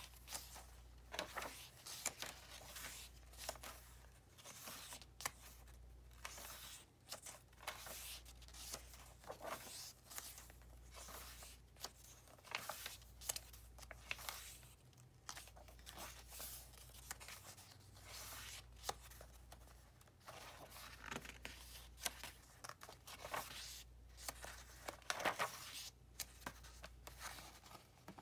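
Paper pages of a handmade journal being turned and smoothed by hand: a run of short paper rustles and flicks at uneven intervals.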